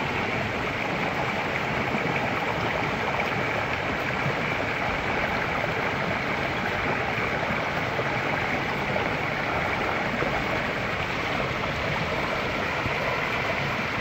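Small forest river rushing steadily over a waterfall cascade: an even, unbroken rush of water.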